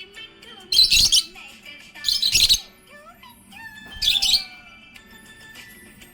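Budgerigar chirping: three loud, harsh chirps spaced a second and a half to two seconds apart, with thin whistled glides between them. It goes quieter for the last second and a half or so.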